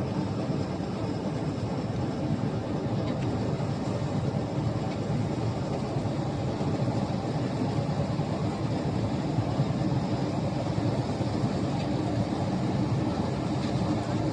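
Kartar 4000 combine harvester's diesel engine running steadily with a continuous low rumble.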